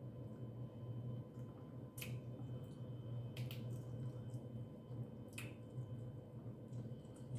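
Close-miked eating of a seafood boil: a few sharp clicks and smacks, spaced a second or two apart, over a steady low hum.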